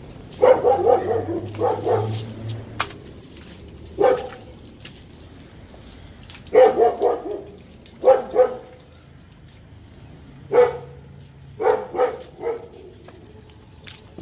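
Caged dogs barking in short volleys: a run of rapid barks near the start, then single barks and bursts of two or three every couple of seconds.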